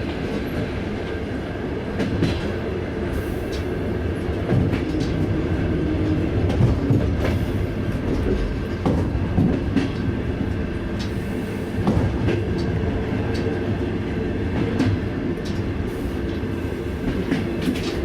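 Passenger train running on the rails: a steady low rumble with irregular sharp clicks and knocks from the wheels and carriages.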